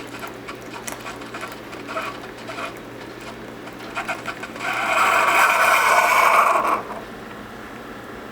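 Keurig single-cup coffee maker brewing: its pump runs with irregular clicks and small sputters. About four and a half seconds in, a loud hissing gurgle lasts about two seconds and stops suddenly as air is pushed through the K-cup to finish the brew, leaving a steady low hum.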